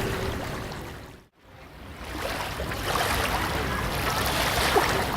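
Light crowded beach ambience: surf washing with scattered voices of beachgoers. About a second in it fades down to near silence and then fades back up.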